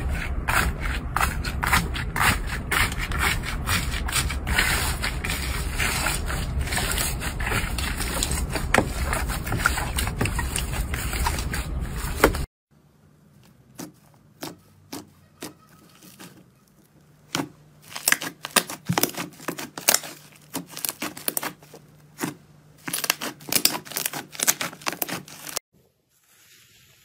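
Slime being squeezed and worked by hand, with dense crackling and popping. After an abrupt cut about twelve seconds in it changes to a quieter run of sparser sticky pops and clicks, which stops shortly before the end.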